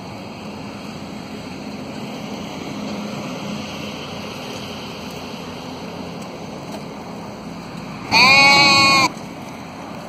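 A sheep bleats once near the end, a loud call of about a second held at an even pitch, over a steady background hiss.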